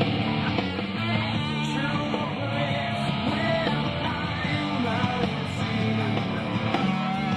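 Rock music playing steadily, with guitar.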